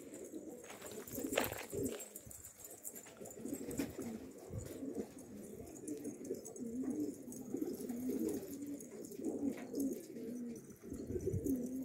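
Domestic pigeons cooing, many overlapping coos rising and falling in pitch.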